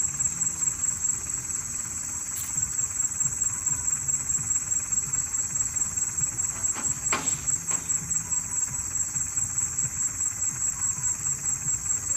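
Insects chirping: a steady high-pitched trill pulsing about three or four times a second, with a brief tap about seven seconds in.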